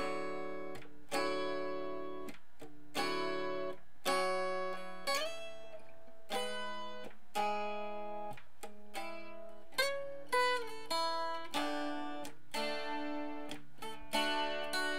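Acoustic guitar playing, chords plucked or strummed about once a second, each ringing and fading before the next.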